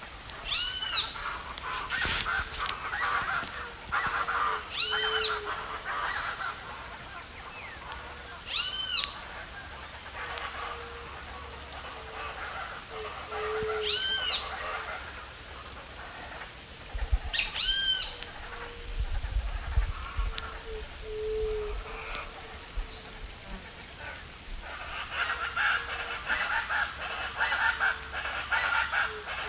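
Wild birds calling: a short, high, arching call repeated five times, about every four seconds, over many short low notes. Patches of crackling noise come near the start and again near the end.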